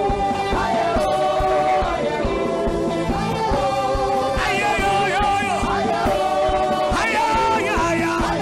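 Gospel worship music: held keyboard chords over a steady beat, with a voice singing over them.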